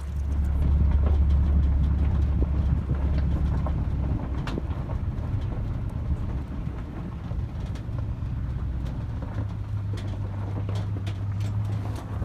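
A motor vehicle running with a loud, steady low rumble and scattered rattles. Its pitch steps up slightly about nine and a half seconds in.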